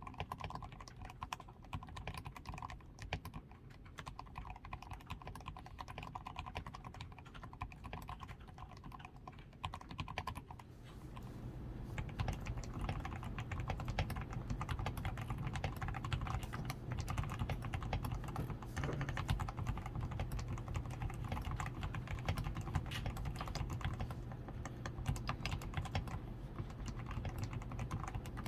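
Continuous fast typing on a DAREU A87 Pro mechanical keyboard, fully lubed with Krytox 105, tape-modded and fitted with XDA keycaps: a dense run of soft, muted keystrokes. About a third of the way in the typing grows louder and deeper.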